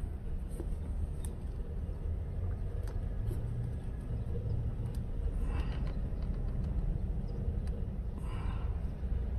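Steady low rumble of motor vehicles, with two brief hissing swells about five and a half and eight and a half seconds in.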